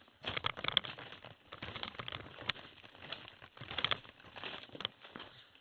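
Irregular crunching and rustling of footsteps on a forest path, with clothing rubbing close to the microphone.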